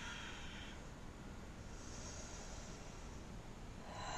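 Slow, deep breathing through the nose during a held yoga pose: a soft exhale at the start, then a softer, higher inhale in the middle. Near the end a steady drone with several pitches sets in.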